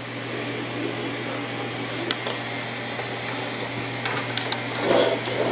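A small machine running with a steady whir over a constant low hum, with a few faint ticks.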